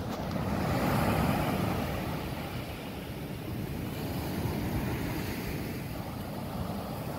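Wind buffeting the microphone over waves washing on the beach: a low rumbling noise that swells about a second in.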